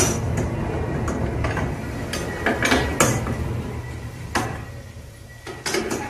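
Irregular metallic clicks and clinks of a hand wrench turning and seating the mounting bolts of a washing machine's transmission on its base plate, the bolts being snugged lightly in a cross pattern before the final tightening.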